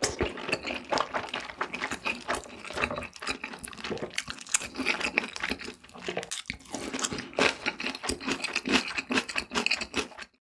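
Mouth eating sounds: chewing and crunching with many quick clicks and smacks, cutting off suddenly near the end.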